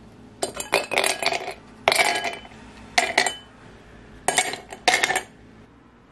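Dishes and cutlery clinking and clattering in about six short spells, some strikes ringing briefly.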